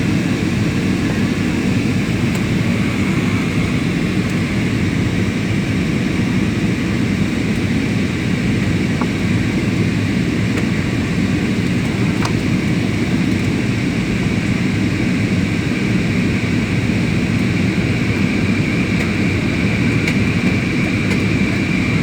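Steady roar of an airliner's engines and airflow heard inside the passenger cabin during the descent for landing, even and unbroken, with a faint high steady whine above the low rumble.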